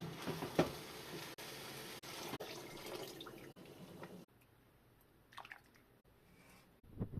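Liquid splashing and trickling in a kitchen, broken into short pieces, with a sharp knock about half a second in and a couple of short clatters near the end.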